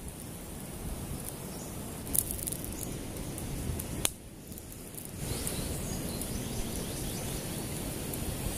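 Wood fire crackling under a cooking pan, with two sharp pops about two and four seconds in, over a steady hiss that grows louder about five seconds in.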